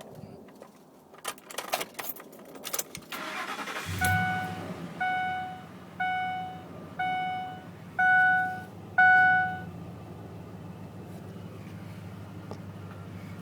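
Keys rattle in the ignition, then the Ford's engine cranks briefly and starts about four seconds in and settles into a steady idle. Right after it starts, a warning chime sounds six times, about once a second.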